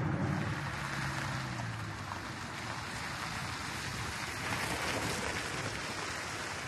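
A Land Rover Defender driving: a steady rush of wind and road noise over a low engine hum that fades after about two seconds.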